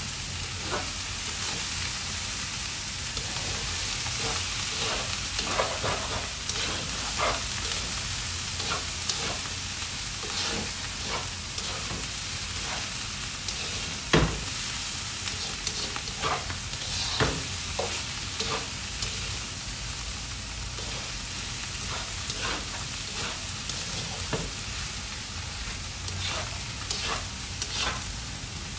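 Cauliflower fried rice with diced vegetables and fish cake sizzling in a wok while a slotted spatula stirs and scrapes it, with a steady hiss and frequent short taps of the spatula on the pan. One louder knock comes about halfway through.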